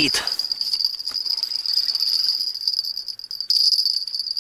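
An insect stridulating close by: one steady, high-pitched buzz that holds its pitch throughout.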